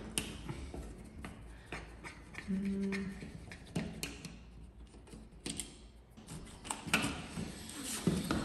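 Scattered small clicks and scrapes of a screwdriver working the screws of a plastic wall light switch, with a few louder clicks near the end as the switch is pulled free of the wall. A brief low hum about two and a half seconds in.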